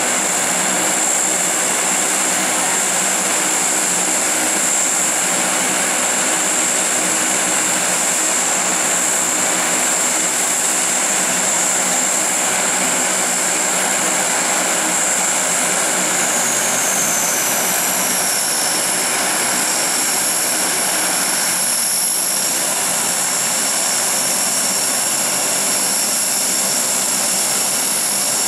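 Lockheed C-130 Hercules' four turboprop engines running together on the ground, a loud steady propeller drone under a high turbine whine. Partway through, the whine slides down in pitch and then holds steady as the engines are eased back.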